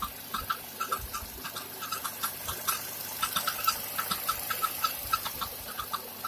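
Recirculation valve knocking: rapid, irregular clicking, several taps a second, each with a short high ring. The owner takes it for the valve rather than a bearing, which would hum.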